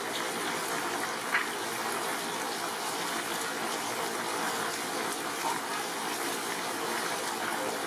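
Heavy rain pouring down steadily, with one short sharp sound about a second in.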